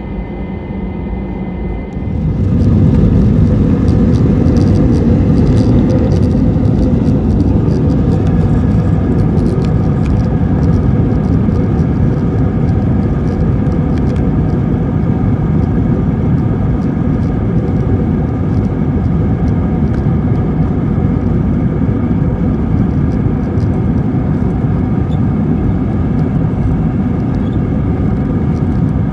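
Airbus A321's IAE V2500 jet engines spooling up sharply about two seconds in, then running steadily at high thrust through the takeoff roll, with a deep rumble and scattered light clicks and rattles.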